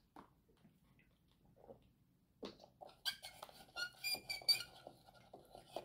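A plastic straw squeaking against the lid of a domed plastic cup as it is pushed up and down and stirred, a run of short high squeaks and clicks in the second half.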